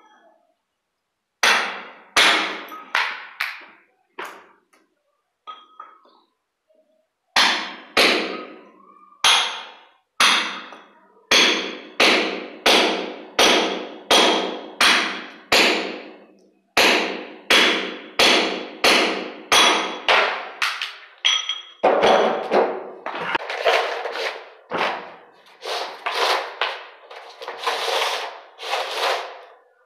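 Hammer blows at a steady beat of about two a second, each with a brief metallic ring. A few strikes come in the first seconds, then a pause, then a long even run, which gives way near the end to quicker, denser knocking.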